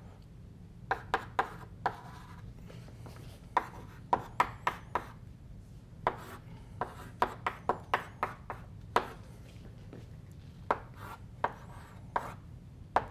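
Chalk writing on a blackboard: an irregular run of sharp taps, several a second in places, as strokes and dots are struck onto the board, over a faint steady room hum.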